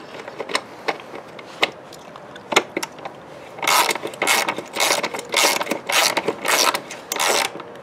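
Socket ratchet clicking as it runs a 13 mm exhaust mounting bolt in snug: a few scattered clicks and taps, then about six quick back-and-forth ratcheting strokes in the second half.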